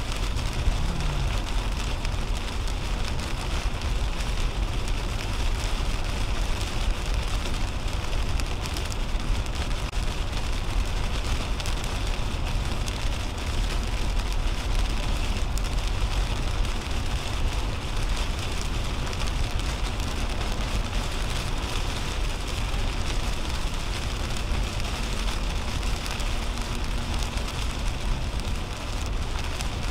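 Steady rain hitting the windshield while a 2010 Toyota Camry drives at highway speed on a wet interstate, heard from inside the cabin: an even hiss of rain and tyre spray over a low road rumble.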